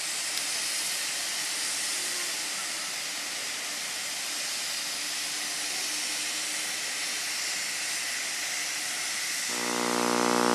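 A steady, even hiss. About a second before the end, a droning tone with many overtones fades in and grows louder.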